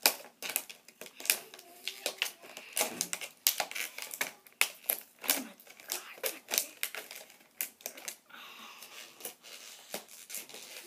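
Cardboard box packaging being cut and pried open by hand: a rapid, irregular run of sharp clicks, snaps and crinkles, thinning out near the end.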